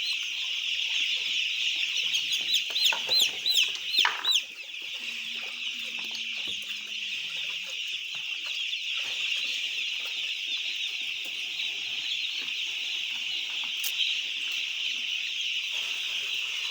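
A brooder full of chicks peeping in a dense, continuous chorus, with a run of louder, separate peeps close by between about two and four and a half seconds in.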